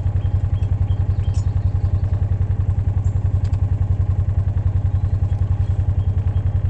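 Engine of the vehicle pulling the log, running steadily at low speed with an even, rapid throb.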